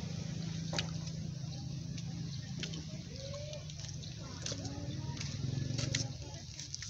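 Tabby cat chewing and crunching food off the concrete, with a few sharp clicks, over a steady low hum.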